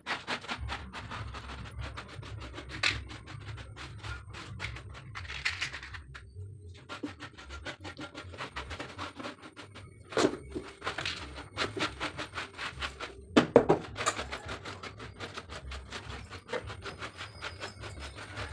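A hand scraping and gathering dry debris off a rough concrete kitchen floor: a steady run of scratching and rubbing, with a couple of louder knocks about ten and thirteen seconds in.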